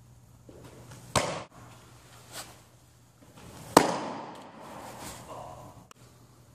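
Baseball pitches popping into a catcher's mitt: a sharp smack about a second in and a louder one a little past the middle, as the four-seam fastball lands, with an echo trailing after it. There is a fainter knock between them, over a low steady hum.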